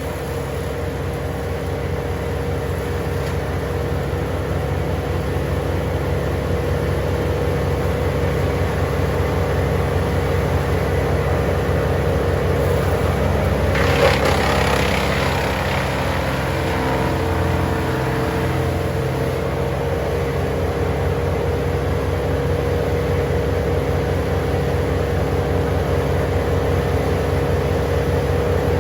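Wood chipper engine running steadily, with a brief louder rush about halfway through.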